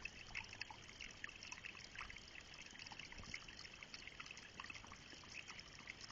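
Small stream trickling: a faint, steady babble of many tiny splashes.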